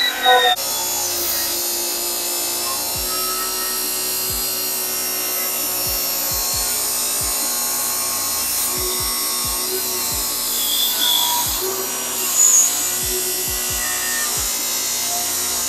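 Table saw running steadily while a plywood panel is fed through the tilted blade for an angled cut, under background music with a steady beat.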